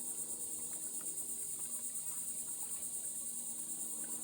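Insects trilling in a steady, high-pitched chorus with a fast, even pulse.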